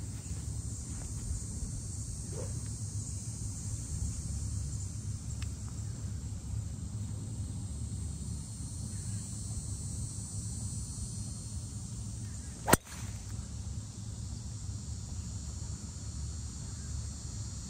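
A golf driver strikes a teed ball: one sharp crack about two-thirds of the way through.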